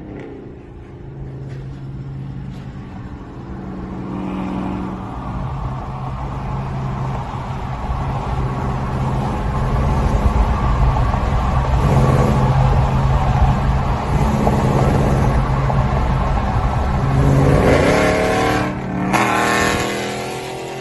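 Dodge Charger R/T's Hemi V8 running loud through long-tube headers, catless mid pipes and no mufflers. The exhaust note builds over the first half and holds, then rises in pitch as it revs near the end before falling off.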